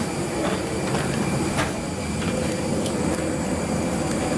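Steady rumble and hiss of the parked airliner's air and ground systems, with a few light clicks and knocks, around one and a half seconds in.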